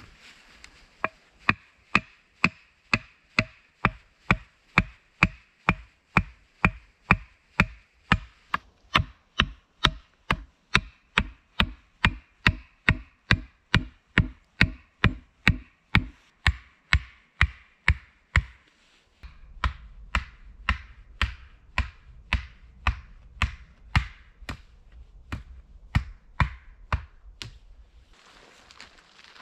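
Wood being chopped with a blade: sharp, evenly spaced strikes at about two a second. After a brief break about two-thirds through, the strikes continue over a low rumble, then stop shortly before the end.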